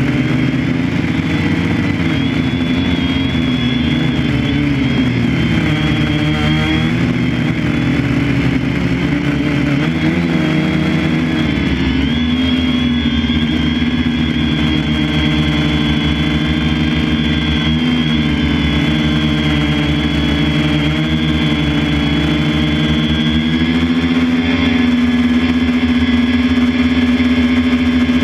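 Engine of harvesting farm machinery running steadily under load, with a steady high whine above it. The engine note shifts slightly about ten seconds in and rises a little near the end.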